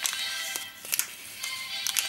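Background music: sustained tones with sharp, bright percussive hits.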